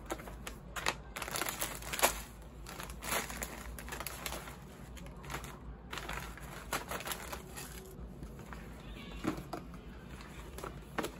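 Plastic snack wrappers crinkling and rustling as packets are picked up and moved about in a cardboard gift box, in an irregular run of short crackles.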